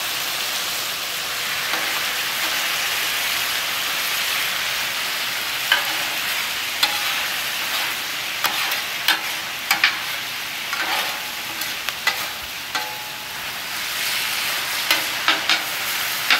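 Thin-sliced flank steak in teriyaki marinade sizzling steadily on a hot flat top griddle as the sauce cooks down. From about six seconds in, metal spatulas scrape and clink against the steel cooktop as the meat is turned.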